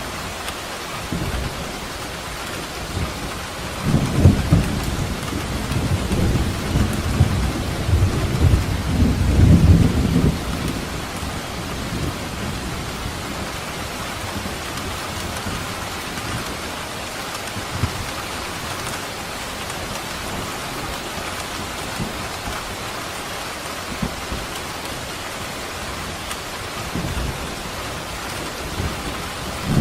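Steady rain falling, with a long low roll of thunder from about four to ten seconds in.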